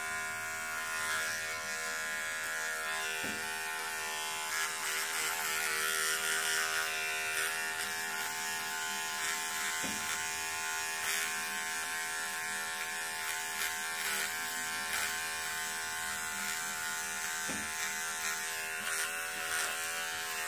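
Electric beard trimmer running with a steady buzz as it shaves the fuzz and loose threads off a knitted sock.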